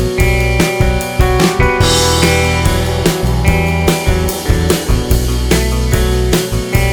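Background rock-style music with drums, bass and guitar playing a steady beat.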